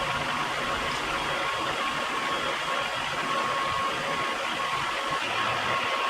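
CNC milling machine running, a steady hiss with a thin constant whine over it.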